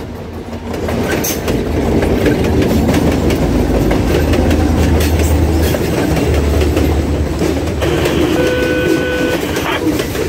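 Reading & Northern freight train passing close by: the diesel locomotives' engines drone loudly as they go past, easing after about seven seconds as the freight cars follow with steady rolling noise and wheels clicking over the rail joints.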